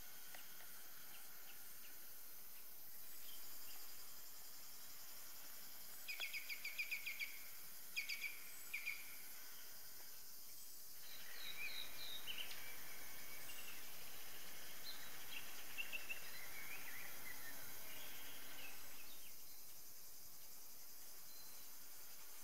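Outdoor ambience of birdsong over a faint, steady high insect hiss. A bird sings quick trilled phrases about six and eight seconds in, and scattered chirping follows from about eleven seconds until near the end, over a slightly louder background.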